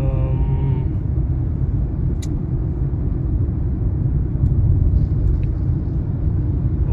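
Steady low rumble of road and engine noise inside a moving car's cabin. A single sharp click comes about two seconds in.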